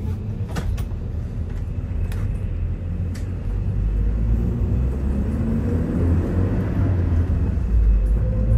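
Airport apron bus running, a steady low rumble, with a few light knocks early and a faint rising whine near the end.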